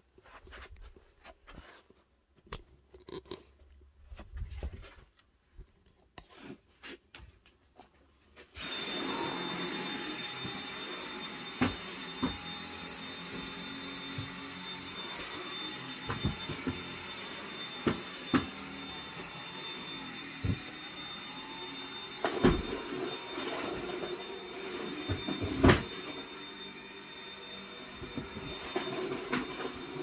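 Cordless stick vacuum cleaner switched on a little under a third of the way in, then running steadily over carpet with a high whine, with occasional knocks and clicks. Before it starts there are only faint scattered clicks and shuffles.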